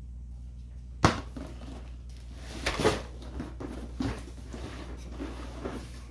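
Cardboard appliance box being handled and opened: a sharp knock about a second in, then rustling and scraping of cardboard flaps and packaging. A low steady hum runs underneath.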